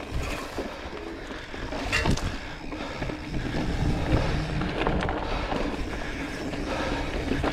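Mountain bike rolling along a dry dirt singletrack: tyres on loose dirt and the bike rattling over bumps, with a couple of sharper knocks.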